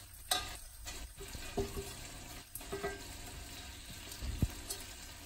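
Chicken frying in a covered pan, a steady sizzle, with scattered clicks and knocks as peanuts are scraped off a plastic cutting board into a glass blender jar.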